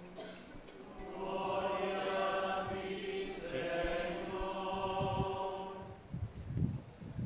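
Choir singing the Gospel acclamation in two long sung phrases that die away about six seconds in, followed by a few soft low thumps.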